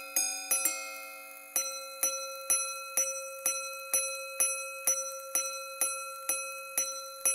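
Patek Philippe Grandmaster Chime wristwatch striking its gongs as a minute repeater. There are a few two-note strikes in the first second, then a run of single strikes on one gong, about two a second, each ringing away before the next. The two-note strikes are the quarters and the single strikes count the minutes.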